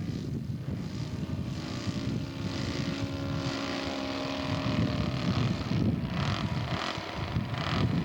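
A radio-controlled scale model airplane's engine and propeller running, holding a steady tone for a few seconds in the middle, over a heavy low rumble.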